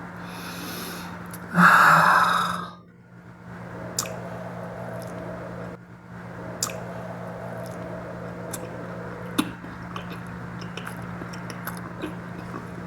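Close-miked mukbang eating sounds: a loud breathy rush about two seconds in, then scattered small clicks and smacks of chewing, over a steady low hum.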